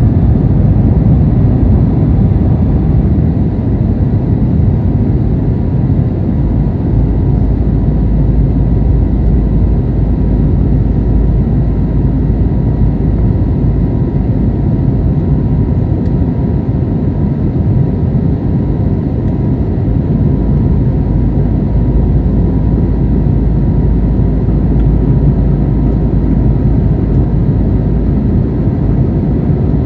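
Cabin noise inside an Airbus A320neo climbing after takeoff, heard from a window seat behind the wing: a steady, low-heavy rumble of engines and airflow with faint steady tones above it.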